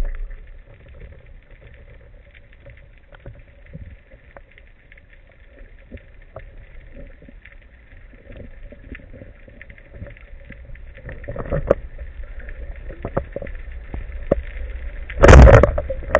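Underwater crackle of many small faint clicks, then about three-quarters of a second before the end a single loud, sudden thump as a wooden speargun with twin rubber bands fires its shaft.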